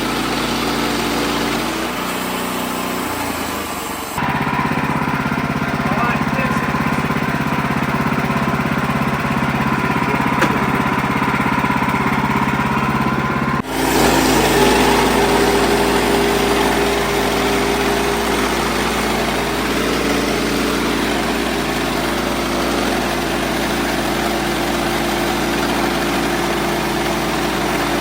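Wood-Mizer LX55 band sawmill running steadily while milling a poplar log into slabs. The sound changes abruptly about four seconds in and again about fourteen seconds in.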